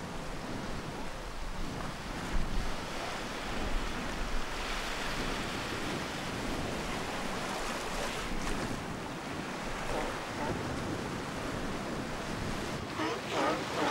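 Surf washing onto a sandy beach: a steady rush of waves, with wind.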